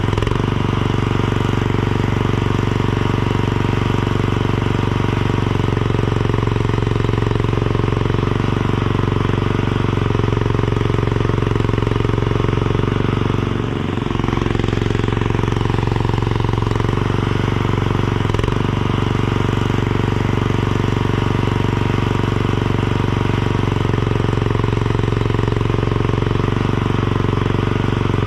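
Tractor engine running steadily under load, with a brief dip about halfway through.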